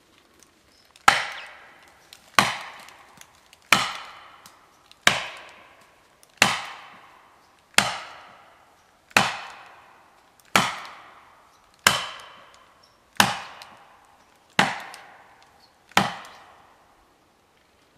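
A felling wedge being struck into the back cut of a beech, twelve evenly spaced blows about every second and a half, each ringing briefly: the wedge is being driven in to tip the tree over.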